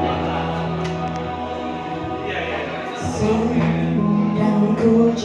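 Live band playing held chords on keyboard and guitars, then a woman starts singing into a microphone about three seconds in, with the music getting louder as she comes in.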